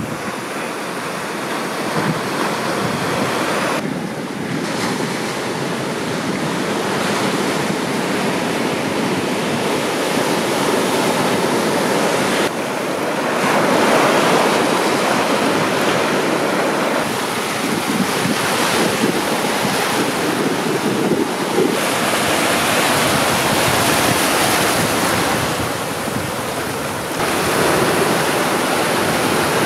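Ocean surf breaking and washing over a rocky reef and shore, a continuous rushing of water that swells and shifts in level, with wind buffeting the microphone.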